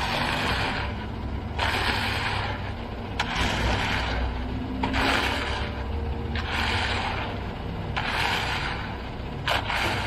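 A concrete rake (come-along) scraping as it is pulled through wet concrete, in repeated strokes about every one and a half seconds. A concrete mixer truck runs with a steady low rumble underneath.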